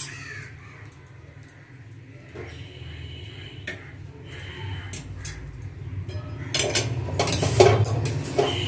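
Metal spoon scraping and clinking against a metal pan as thick rice-flour and palm batter is stirred, over a low steady hum. The clinks come thicker and louder in the last two seconds.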